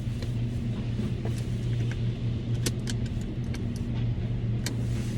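Steady low mechanical hum at a car wash, with scattered sharp clicks and taps over it.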